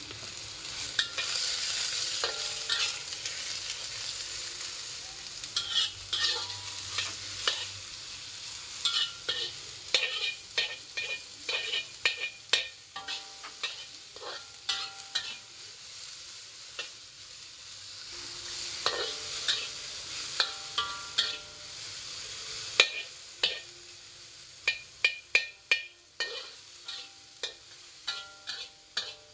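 Sliced onions sizzling in oil in a wok, stirred with a metal spatula that scrapes and clinks against the pan again and again. The sizzle swells near the start and again about two-thirds through, and the clinks come fast near the end.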